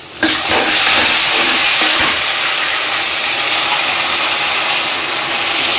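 Loud, steady sizzling hiss as cooked dal and vegetables are ladled into hot mustard oil with fried spices in an iron kadhai. It starts suddenly as the first ladleful hits the oil.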